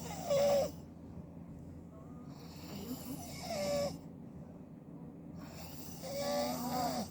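A man snoring loudly in his sleep: three snores about three seconds apart, each with a wavering tone, the first the loudest.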